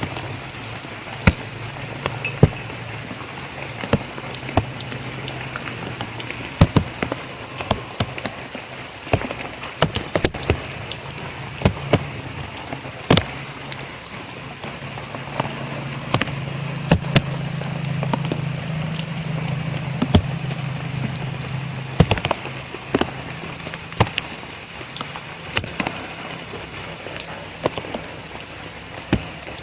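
Steady rain falling, with frequent sharp taps of drops striking close by. A low steady hum sits underneath and grows a little louder in the middle.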